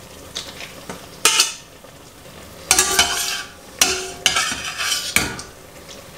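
Wet spaghetti dropped from metal tongs into a hot pan of clam sauce, sizzling in four short bursts, with the tongs clinking against the pots.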